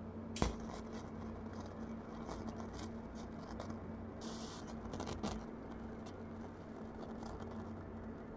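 Audiolab 8200A amplifier's faulty left channel heard through its loudspeaker: a steady low hum with irregular crackling and clicks, a sharp pop about half a second in, a short hiss near four seconds and another pop about five seconds in.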